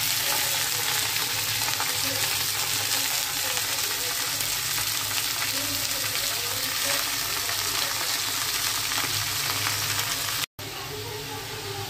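Chopped leafy greens sizzling in hot oil with fried onion in a wok, a steady loud hiss. It cuts out for a moment near the end and comes back quieter.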